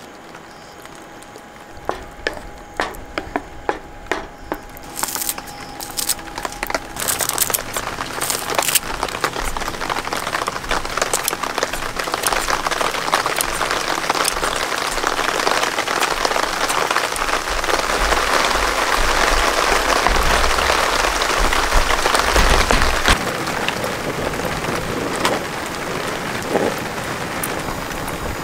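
Rain falling, starting as scattered drops and building after about five seconds into a steady, heavy downpour. It is heaviest about two-thirds of the way through, then eases slightly.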